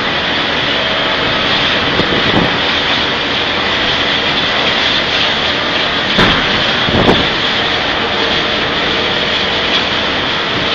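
Storm wind blowing hard and steadily in a blizzard, strong enough to lift a telehandler onto two wheels, with gusts hitting the microphone about two, six and seven seconds in.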